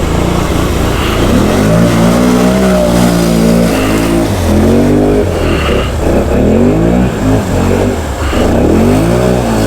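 Can-Am Outlander 650 XMR ATV's V-twin engine revving hard through a mud hole, its pitch climbing and dropping several times as the throttle is worked.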